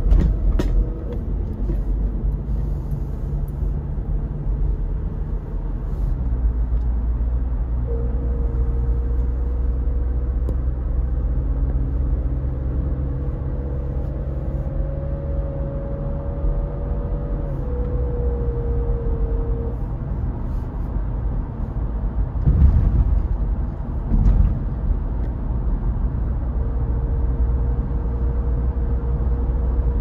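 Car interior noise while driving: a steady low rumble of engine and tyres on the road, with a faint whine that holds and then drifts in pitch through the middle and comes back near the end. Two brief thumps a little past twenty seconds in.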